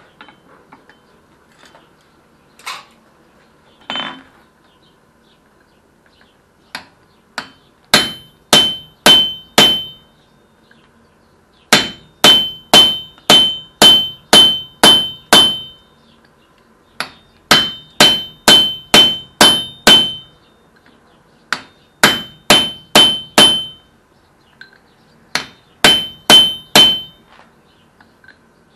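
Hand hammer striking a hot-cut chisel held on a red-hot mild-steel bar on the anvil, cutting into the bar. The blows come in runs of four to eight, about two a second, each with a short metallic ring, after a few lighter single knocks.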